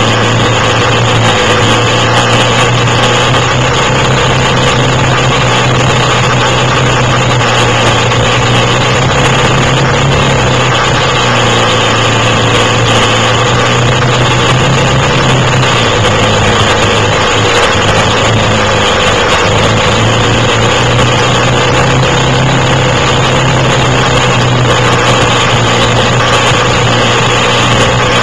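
Quad bike (ATV) engine running at a steady, even pitch. It eases off briefly about two-thirds of the way through, then picks back up.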